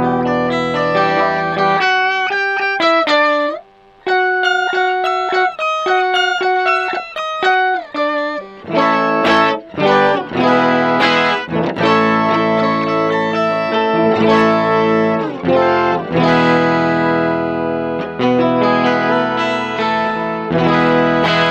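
Electric guitar played through an Electro-Harmonix Micro POG polyphonic octave pedal, with the octave-up voice turned up full over the dry signal and the sub-octave off, so each note carries a bright octave above it. Single-note phrases with a brief pause about four seconds in, then strummed chords.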